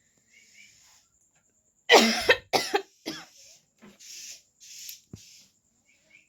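A woman coughing: three loud coughs in quick succession about two seconds in, followed by fainter coughs and breaths.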